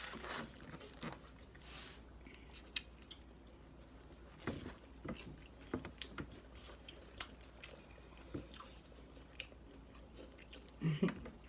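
Close-up chewing and biting into crispy fried onion rings, with scattered crunches and mouth sounds.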